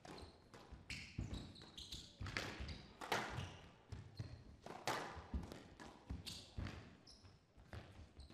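Squash rally: the ball cracking off rackets and the walls in sharp, irregular hits about once a second, with shoes squeaking briefly on the court floor between them.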